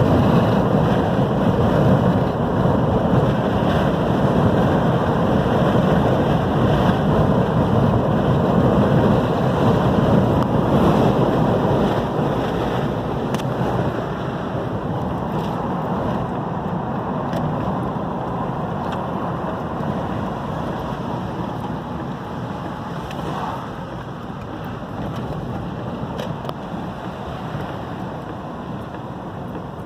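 Strong storm wind buffeting the microphone over ocean surf: a steady rush of noise, heaviest in the low end, that eases a little about halfway through.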